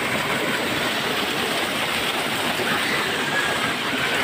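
Shallow river current rushing steadily over rocks, right at the microphone held at water level.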